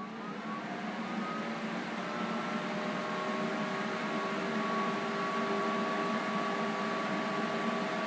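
Magna-Power DC power supply running under load, a steady hum and whir with several thin tones that grows gradually louder and creeps slightly up in pitch as its output current ramps up into a short circuit.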